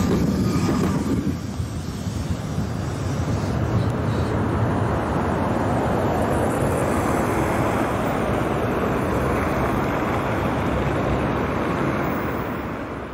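71-931M Vityaz-M tram passing close by and pulling away, followed by a steady rushing noise of wind on the microphone that fades out near the end.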